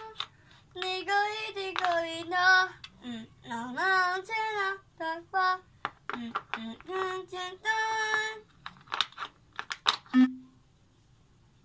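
A high voice singing a tune without words, with held and gliding notes. Near the end come a few sharp clicks of painted wooden puzzle pieces being set into their wooden tray.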